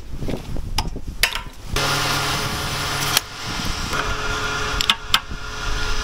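Petrol pump nozzle dispensing fuel into a motorcycle's tank: a steady rush of flowing fuel over the pump's hum. It breaks off briefly about three seconds in, then runs on, with a few sharp clicks along the way.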